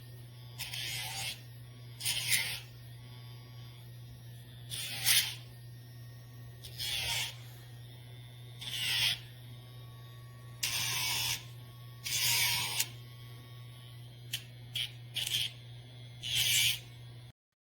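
Casfuy electric dog nail grinder running with a steady hum, its grinding wheel touched to the dog's nails in short passes that give about ten brief rasping bursts, one every second or two. The motor switches off just before the end.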